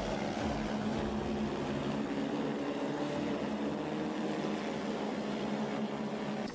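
EHang 184 passenger drone's electric rotors humming steadily in flight: a few held tones over a rushing whir of the propellers.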